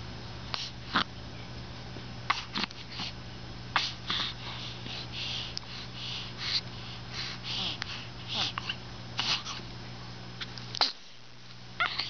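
A baby sneezing, among a run of short sniffling, snuffling breaths through the nose.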